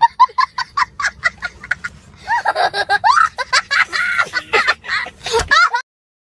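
A rapid run of short, high-pitched vocal sounds, quickly rising and falling in pitch, that cuts off suddenly near the end.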